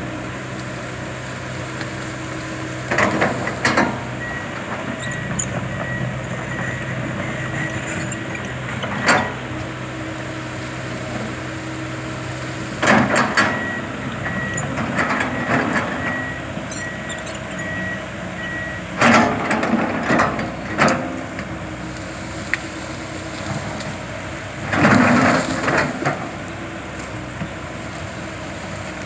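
Komatsu PC200LC tracked excavator running steadily under work, with several loud bursts of noise as it digs and drags. A high regular beeping comes in two spells of a few seconds each.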